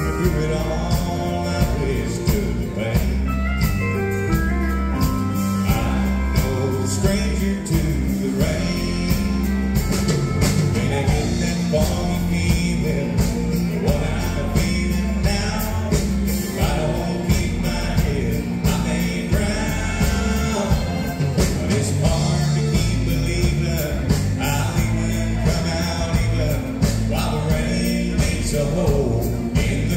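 Live country band playing a slow song with a steady drum beat, fiddle, electric and acoustic guitars, and a man singing lead.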